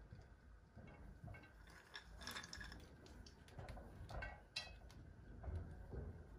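Faint, scattered light clicks and clinks of cashew nuts being picked off a glass plate and dropped onto cooked rice in a pot.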